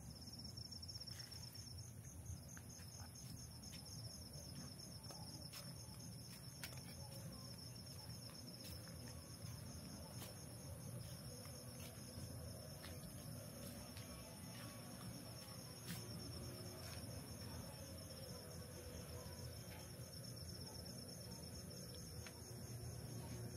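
Crickets chirping in a steady, high, evenly pulsing trill, with a fainter insect buzz above it, over a low rumble.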